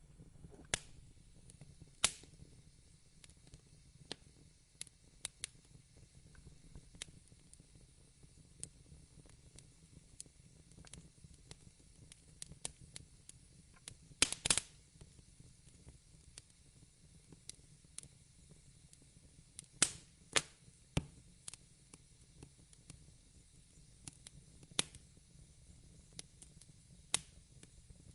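Fire in a fireplace crackling: irregular sharp pops and snaps over a steady low rumble, with a quick cluster of the loudest pops about halfway through.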